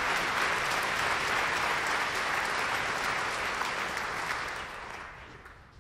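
Audience applauding, with many hands clapping together; the applause fades away over the last second or so.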